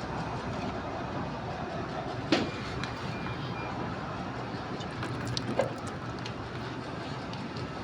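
A steady mechanical hum with two short, sharp knocks, one a little over two seconds in and one past the middle.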